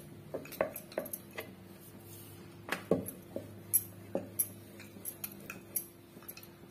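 Rolling pin being worked over poppy-seed-coated dough on a wooden rolling board, giving irregular sharp clicks and knocks as pin and board shift, over a low steady hum.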